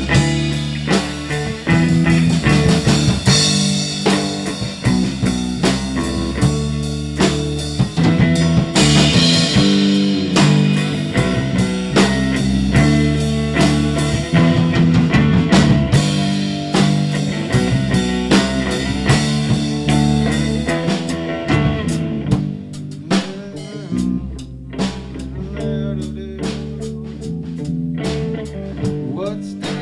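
Rock band playing a blues-rock song with guitar, bass and drum kit. The playing gets sparser and a little quieter about two-thirds of the way through.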